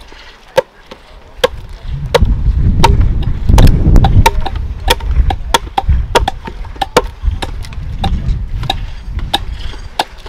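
Adzes chopping into green-wood logs to hollow out bowl blanks: sharp, irregular strikes, about two a second, with a low rumble underneath from about two seconds in.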